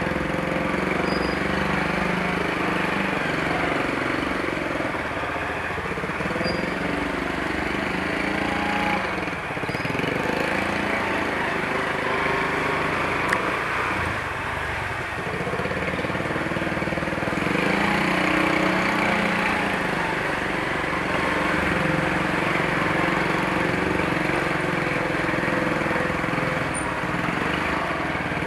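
Motorcycle engine running on the move, its note rising and falling with the throttle, under steady rushing wind and road noise.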